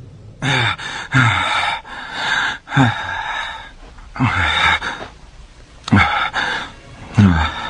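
A dubbed anime fighter's heavy, strained breathing: about six panting breaths, each a noisy gasp with a falling, grunt-like voice in it.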